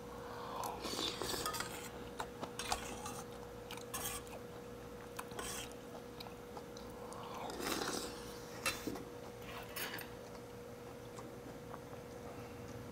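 Close-up eating sounds: slurping and chewing spoonfuls of eel soup, with a metal spoon clinking against a stainless steel bowl and the light clicks of metal chopsticks on side dishes. A faint steady hum runs underneath.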